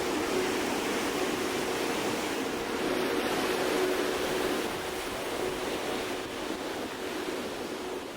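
Ocean surf washing onto the beach, a steady rushing wash that eases off over the last few seconds.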